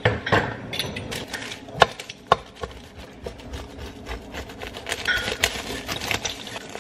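Metal pizza cutter wheel rolling through the crust of a freshly baked homemade pizza on parchment paper, with scattered crackling and scraping and a few sharp clicks.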